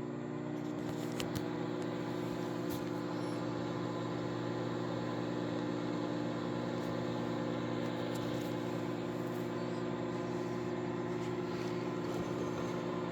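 Microwave oven running with a steady hum while eggs fry in a microwave frying container; a couple of faint clicks about a second in.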